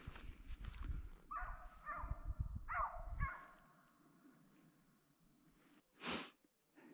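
Hunting hound, an American foxhound, barking about five times in quick succession over a low rumble.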